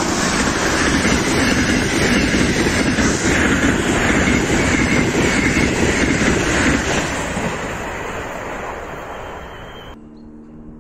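Siemens Desiro Rus (ES1 "Lastochka") electric train passing close at speed: loud rushing wheel-and-rail noise with a faint high whine. It fades as the train moves away over the last few seconds, then drops suddenly near the end.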